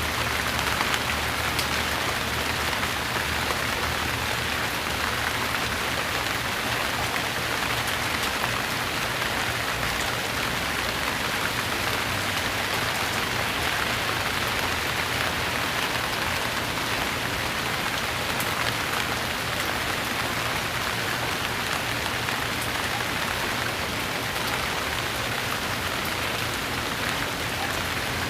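Steady rain falling on a surface, an even hiss with scattered drop ticks throughout.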